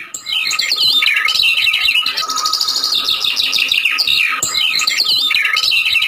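Many small birds chirping and twittering at once in a busy chorus of quick rising and falling chirps, starting suddenly.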